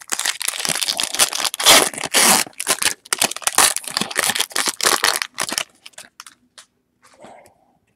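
A foil trading-card pack wrapper being torn open and crinkled in the hands: dense crackling for about five seconds, then a few light clicks as the cards are handled.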